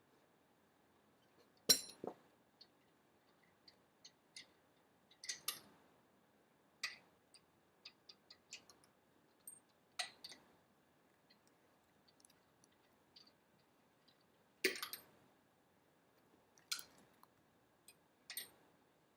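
Scattered sharp clicks and light knocks from hand work on a car wheel, irregularly spaced. The loudest comes about two seconds in, and another strong knock comes near fifteen seconds.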